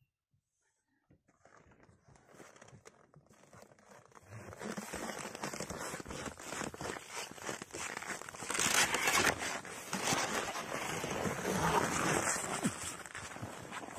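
Crunching steps on hard frozen snow, close by. They are dense and crackly, start faint after a near-silent opening, and grow loud from about four seconds in.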